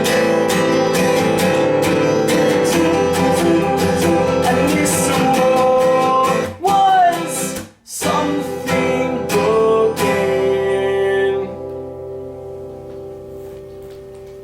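Acoustic guitar strumming the closing bars of a song, stopping briefly about eight seconds in, then a last few chords struck and left to ring, fading out.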